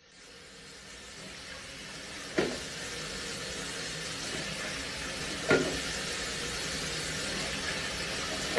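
Kitchen tap running onto a pan in a sink: a steady hiss of falling water that slowly grows louder. There are two sharp clanks of cookware, about two and a half seconds in and again about three seconds later.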